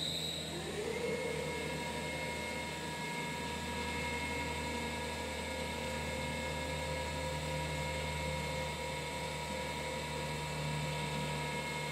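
Pipe band saw running with its blade out of the cut: a steady machine hum with several held tones, one of them rising just after the start, as the saw head swings back up. A deeper hum strengthens about three seconds in.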